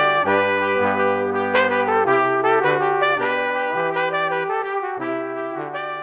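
Intro music: a melody of held, chord-like notes over a bass line that steps from note to note, growing quieter toward the end.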